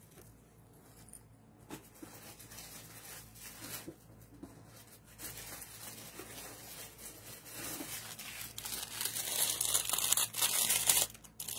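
Packaging being handled, crinkling and rustling with irregular crackles, getting louder over the last few seconds.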